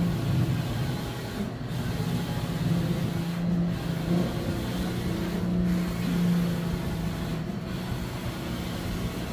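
Large-format tarpaulin printer running: a steady whir and hum that dips briefly about every two seconds.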